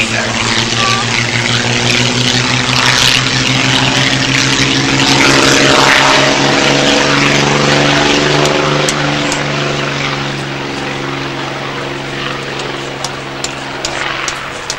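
de Havilland Mosquito's twin Rolls-Royce Merlin V12 engines running at high power as it speeds along the runway past the camera. The engine note rises slightly at first, is loudest about six seconds in, then fades as the aircraft draws away, with a few light clicks near the end.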